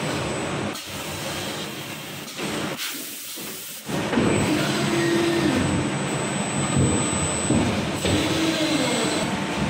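Hydraulic injection moulding machine running through a cycle. A short hiss comes about three seconds in as the moulded basin comes off the mould core. Then the machine's hydraulics run louder and steadily from about four seconds in as the mould closes again.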